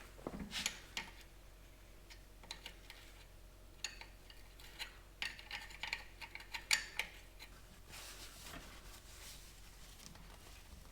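Faint, scattered light metallic clicks and clinks of hand tools and small metal parts being handled, a few at a time, most of them in the middle of the stretch.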